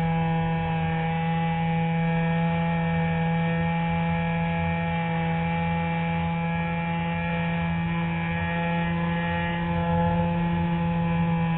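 Electric motor and propeller of an RC Spectra motor glider running at steady power, a constant hum with a high whine above it, picked up by a camera on the fuselage.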